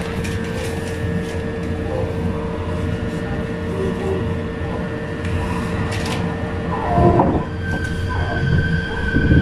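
Meitetsu 4000 series electric train: a steady rumble with several steady electrical tones, and a short loud clatter about seven seconds in. Right at the end, the Mitsubishi IGBT-VVVF inverter starts a rising whine.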